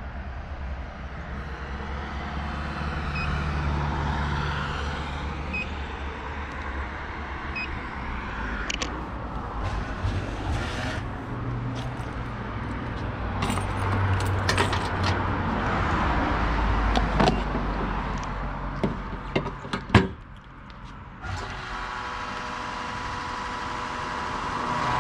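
Camper's engine running with road noise heard from inside the cab, with scattered rattles and clicks from the interior. About twenty seconds in comes a sharp knock and a brief drop, after which a steadier hum with a clear pitch carries on.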